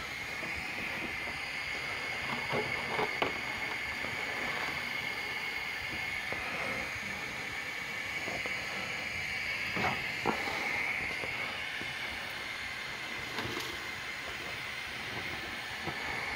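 A steady hiss, strongest in its upper middle, with a few short knocks and clinks of metal cookware: a cluster about three seconds in, two about ten seconds in, and one more a few seconds later.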